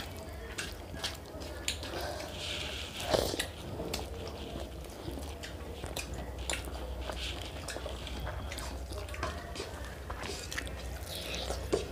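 Close-up eating sounds of fried rice and chicken curry eaten by hand: fingers squishing and mixing rice, with chewing and many small wet clicks and smacks. A louder smack comes about three seconds in, and there is a steady low hum underneath.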